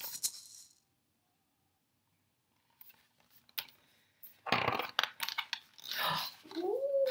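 Pages of a picture book being handled and turned: a few light clicks, then rustling and flapping of paper about four and a half seconds in. Near the end a pitched, gliding voice-like sound rises.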